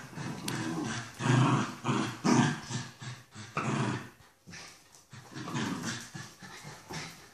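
A Jack Russell terrier and a Lakeland terrier puppy growling in repeated bursts as they play tug-of-war with a toy. The growls are loudest in the first half and weaker near the end.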